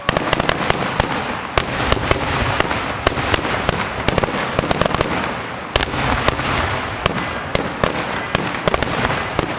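Fireworks going off: a dense, continuous crackle of many sharp cracks and pops, with a sudden louder bang about six seconds in.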